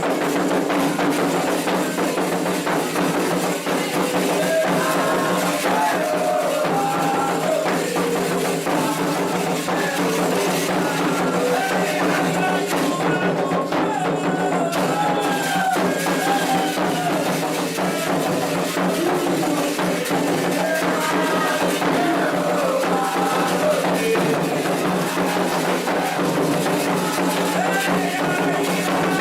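Candomblé ritual music: voices singing a chant over hand drums and percussion, with a steady low hum underneath.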